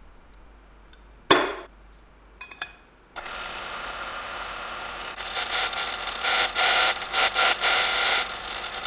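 A hammer strikes a centre punch on a steel bracket once, with a sharp, briefly ringing clang. About three seconds in a drill press starts running, and from about five seconds in its twist bit cuts into the steel, louder and rising and falling as the chips come off.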